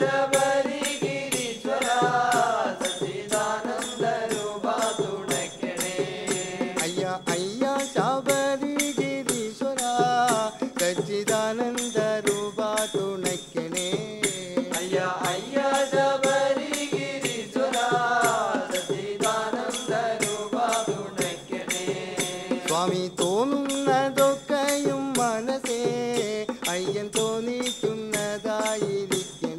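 South Indian devotional song: voices singing a melodic chant over a steady beat of hand percussion.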